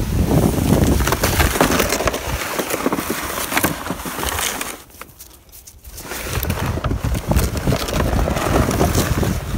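Crunching and scraping in snow and slush: a plastic saucer sled being dragged along by a harnessed dog, with footsteps in the snow. The noise drops away for about a second around the middle.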